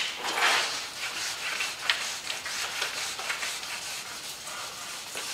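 Hand-held foam pads rubbing over a car's painted quarter panel: swishing strokes, strongest in the first second, then softer steady rubbing.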